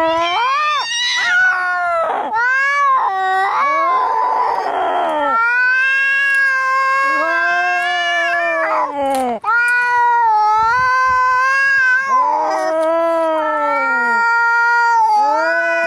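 Angry domestic cats caterwauling in long, wavering yowls that rise and fall in pitch almost without pause, with a short hiss about four seconds in.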